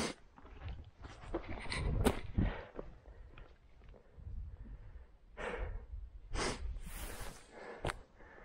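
Irregular footsteps and rustling through wet grass and brush, over a faint low rumble.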